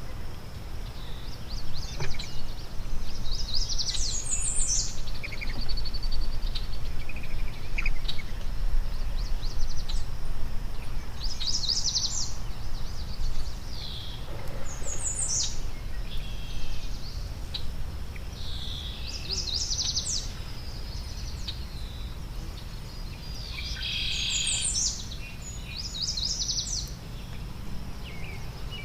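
Wild songbirds singing, a short high song phrase repeated about every four to five seconds, over a steady low rumble.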